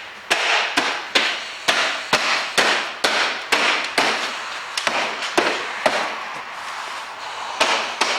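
Hand slapping a car's rear door trim panel, knocking its plastic retaining clips home: a rapid series of sharp hits, about two a second, with a short pause shortly before the end.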